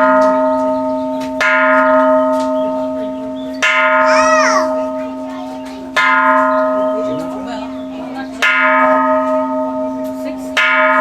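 Japanese Buddhist temple bell (kansho) struck five times, about every two and a half seconds. Each stroke starts sharply and rings on in a low, steady hum that is still sounding when the next stroke lands.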